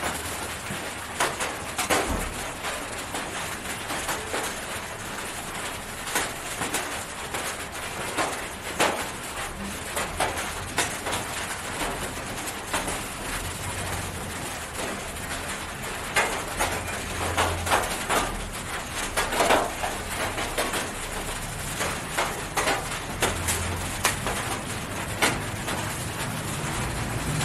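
Thin plastic gloves crinkling and rustling in irregular bursts as the hands hold a hen and wipe her eyes and nostrils with a cloth.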